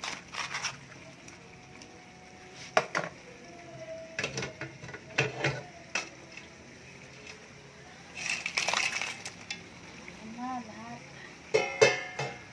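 A metal cooking pot and its lid knocking and clinking as crab, shrimp and corn are handled in it: a string of separate knocks, and a louder ringing metallic clang near the end.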